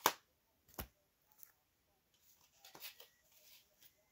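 Sports cards being handled: a few light clicks and taps, the sharpest right at the start and another just under a second in, then fainter ones about three seconds in.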